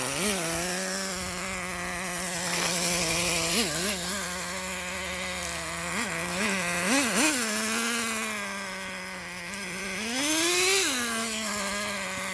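Small nitro (glow-fuel) engine of an RC truck idling with a steady buzz. The throttle is blipped briefly several times and opened for a longer rev about ten seconds in. The engine is out of tune.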